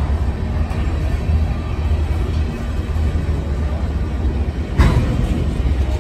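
Freight cars rolling past on the rails with a steady low rumble, and one sharp clank a little under five seconds in.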